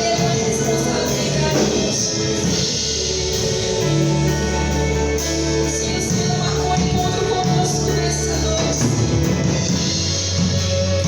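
Live worship band playing a gospel song, with a steady beat, a held bass line and singing voices.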